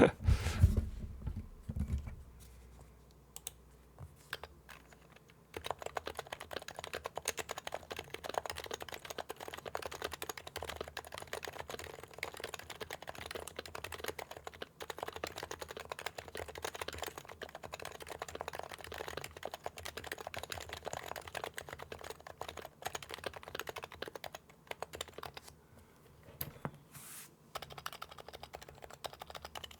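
Typing on a Happy Hacking Keyboard with silenced Topre switches in a CNC aluminum case, a steady run of rapid keystrokes. There is a low thump in the first two seconds, the typing starts about five seconds in, and it pauses briefly near the end.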